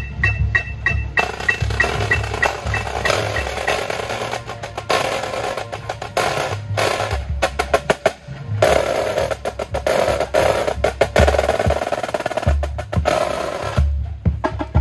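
A drum corps battery of marching snare drums, tenor drums and bass drums playing a piece together, with fast rolls and heavy bass drum hits. A steady metronome click is heard under the drums in the first few seconds.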